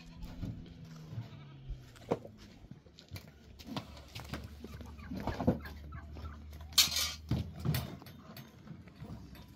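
Small livestock bleating, with scattered knocks and clinks and a steady low hum underneath.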